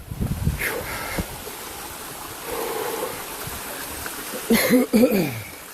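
Steady rush of stream water running over rock, with a short vocal sound near the end.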